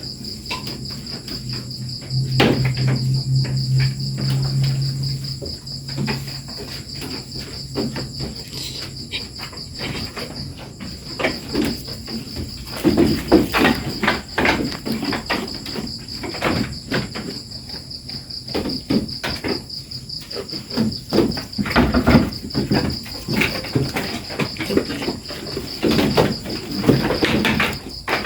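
Insects trilling steadily at a high pitch, with irregular knocks and clattering throughout that come loudest in clusters, and a low hum for a few seconds near the start.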